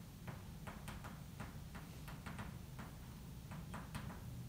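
Irregular light clicks and taps of writing on a classroom board, several a second, over a low steady room hum.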